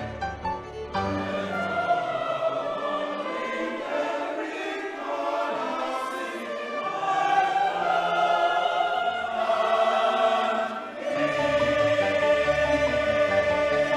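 Choir singing sustained, held notes in church music. The low part drops away about a second and a half in and comes back near the end.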